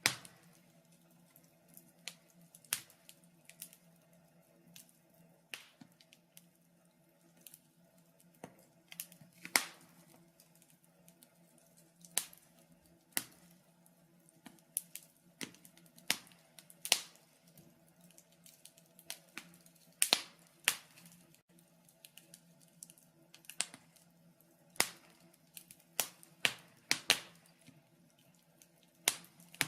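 Irregular sharp clicks and snaps, a few seconds apart and sometimes in quick clusters, over a faint steady hum.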